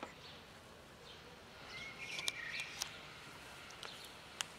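Kitten crunching dry kibble, a few sharp irregular crunches, with birds chirping faintly in the background.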